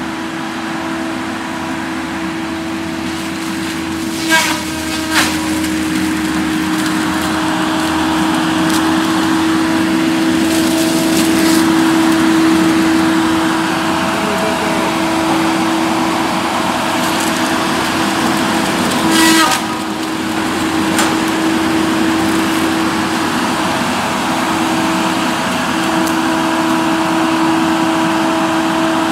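Cat 573C wheeled feller buncher running and driving through the woods, with a steady high-pitched whine over its engine noise. Three sharp cracks stand out, two close together about four seconds in and one about nineteen seconds in.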